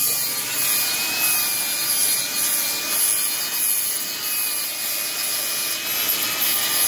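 Grinder running steadily with a faint whine as it grinds down the edge of a wooden roof deck.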